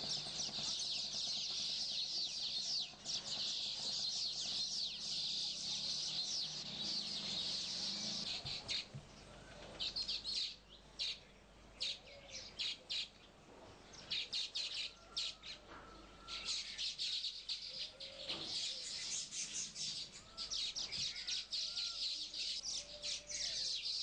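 Baya weavers singing: a dense, high-pitched chatter of rapid chirps, thinning to scattered chirps in the middle and thickening again after about sixteen seconds.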